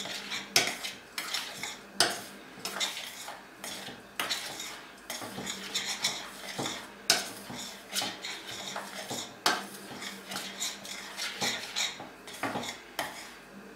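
A metal spoon stirring dry ground walnuts and spices in a stainless steel saucepan, with irregular clinks and scrapes of the spoon against the pot's side and bottom, a few a second.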